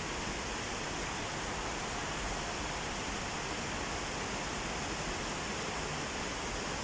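Heavy rain falling, a steady even hiss of downpour.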